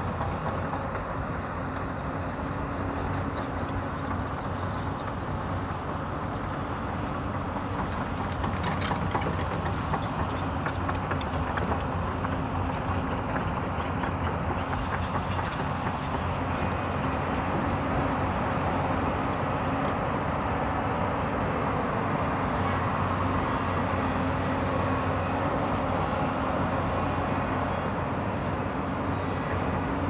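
Diesel engines of two Hyundai crawler excavators running steadily as they dig, with scattered clanks and scrapes, mostly in the first half.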